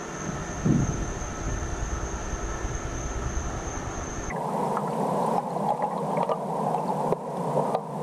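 Steady rushing noise of a small stream, with a thin, high steady tone and a low rumble in the first half that stop abruptly about four seconds in, when a denser rushing takes over.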